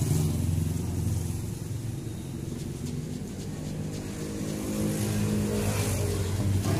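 A motor vehicle's engine running close by on the street: a steady low rumble that eases off a little midway and swells again toward the end.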